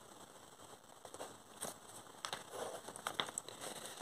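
Pen writing on paper: faint scratching strokes and small ticks, starting about a second in.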